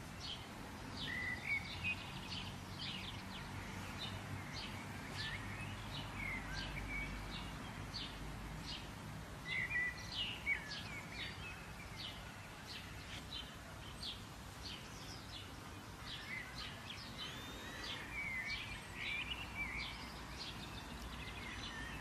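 Outdoor ambience of several birds chirping and singing: quick high chirps and short trills, a few a second, over a steady low background rumble.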